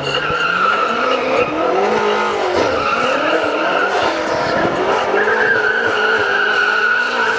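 Car doing a burnout: the rear tyres spin on the tarmac with a steady high squeal while the engine is held at high revs, its pitch wavering up and down. The squeal grows louder in the second half.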